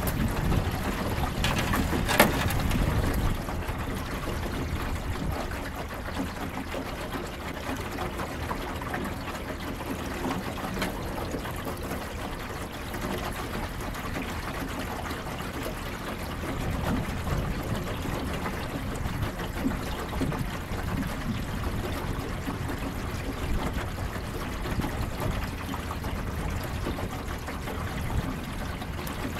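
Water trickling and lapping against a jon boat's hull, louder for the first few seconds and then steady, with a sharp knock about two seconds in.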